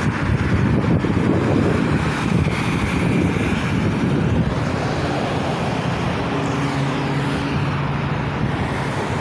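Road traffic at an intersection: cars running and passing in a steady wash of engine and tyre noise, with a low engine hum underneath.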